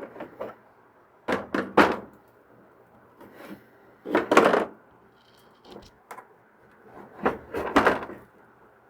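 Hard plastic hydroponic reservoir parts being handled and worked into a tight rubber grommet: three bursts of knocking and rubbing, about a second in, past the middle, and near the end.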